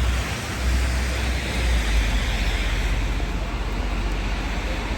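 Steady outdoor street noise: passing traffic, with a heavy low rumble of wind buffeting the microphone.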